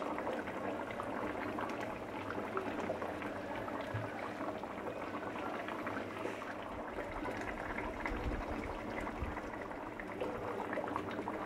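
Mustard gravy with hilsa fish bubbling at a steady boil in a nonstick pan, a dense crackle of small popping bubbles, with a silicone spatula sloshing through the liquid.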